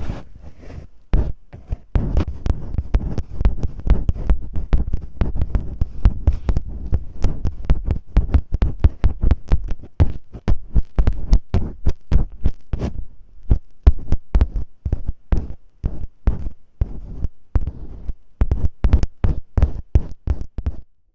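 Masking tape being rubbed and crinkled on a microphone to mimic ear-cleaning: dense, rapid crackling and scratching with a deep rumble. It thins out about two-thirds of the way through, picks up again, then stops abruptly near the end.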